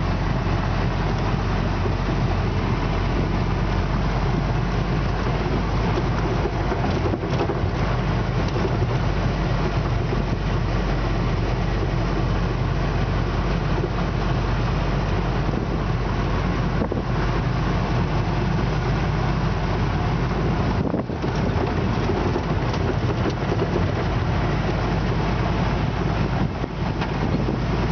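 A WWII Willys MB/Ford GPW jeep under way on a dirt road, heard from inside the cab: its four-cylinder flathead engine running steadily together with tyre and road noise. The level dips briefly about three-quarters of the way through.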